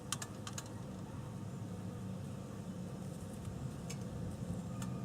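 A honey bee swarm buzzing as a steady low hum, with a few sharp clicks near the start and toward the end.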